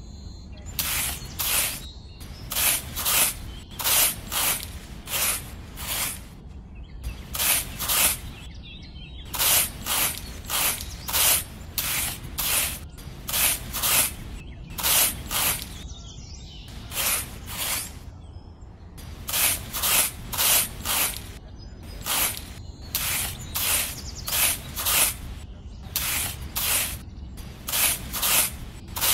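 A miniature matchstick hoe with a small metal blade scraping and tilling sand in quick strokes, about two a second, in runs with short pauses between.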